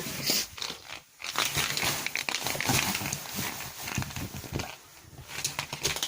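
Chihuahua puppy scrabbling at and mouthing a crinkly homemade toy it cannot get a bite on: a run of irregular rustling and crackling, with a short pause about a second in.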